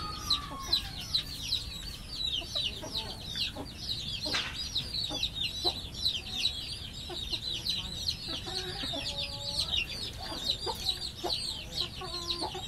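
Rapid, high-pitched chirping, many short calls a second without a break, with a few soft low clucks from the chickens in the second half.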